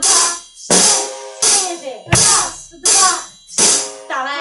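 Drum kit played slowly by a beginner: a hi-hat struck evenly about every 0.7 seconds, with the kick drum landing together with it once. A voice comes in near the end.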